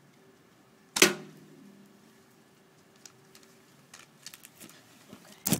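A BB shot from a wrist-braced slingshot: one loud, sharp snap about a second in with a short ring after it. Faint clicks follow, then a second sharp click near the end.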